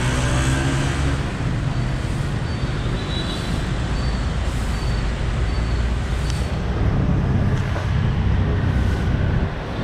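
City street traffic running steadily with a strong low rumble of passing engines, and a run of short high beeps near the middle.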